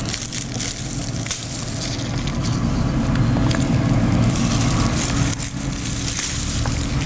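Dry crackling and rustling of hands breaking off and handling dried profusion zinnia seed heads, with scattered small clicks, over a steady low rumble.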